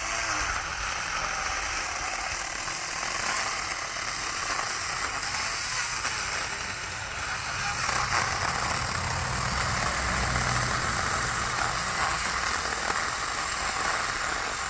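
Cordless 4-inch mini chainsaw running continuously as it cuts through a tree trunk, a steady sawing noise with a low motor hum beneath it.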